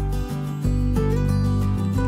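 Background music, with the bass dropping out briefly about a third of a second in.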